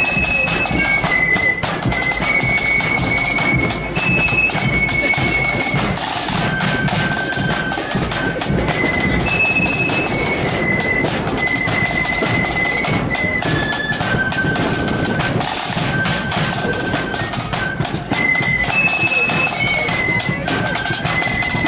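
Marching flute band playing a tune, its shrill flutes carrying a stepping melody over a steady rattle of snare drums and bass drum beats.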